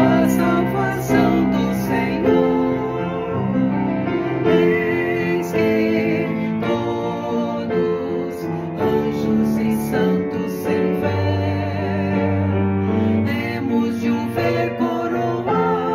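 Two women singing a Christian hymn in Portuguese with piano accompaniment, a slow chorus of held notes.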